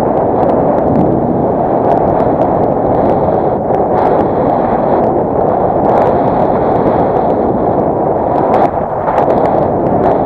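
Strong wind buffeting the camera's microphone: a loud, continuous rumbling roar with no break, drowning out everything else.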